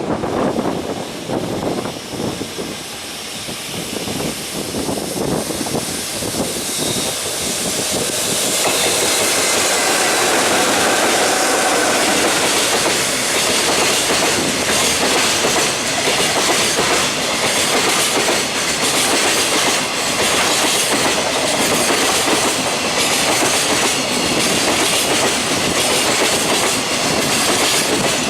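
Freight train hauled by two EF66 electric locomotives running past, with strong wind on the microphone. From about eight seconds in there is the loud steady rush of the freight wagons rolling by, with a repeated clatter of wheels over the rail joints.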